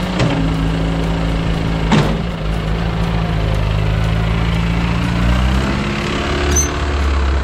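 1963 Ford 2000 farm tractor engine running steadily while plowing snow, with two sharp knocks near the start and about two seconds in. Its note shifts and grows deeper and stronger a little after five seconds in.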